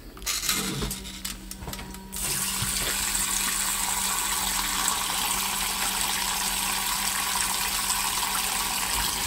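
Washing machine filling with water for a wash cycle: after a few clicks and a low steady hum, water starts rushing into the drum about two seconds in and runs on steadily.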